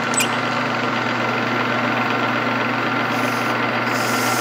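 Metal lathe running steadily with a constant hum and whine while its cutting tool turns down the edge of a steel axle flange. The steel is hard, which he takes for heat-treated chrome moly, and it wears the tool bits quickly.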